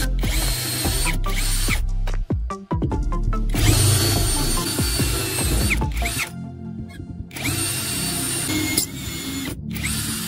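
Electric power tool running in several stretches, broken by abrupt gaps, with background music underneath.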